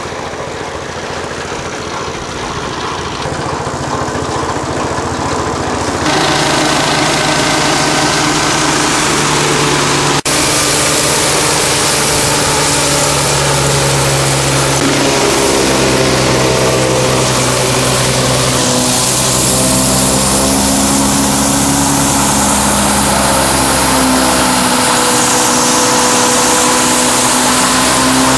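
Engine of a shell-crushing beach restoration machine running, getting louder about six seconds in, with its pitch shifting up and down as it works.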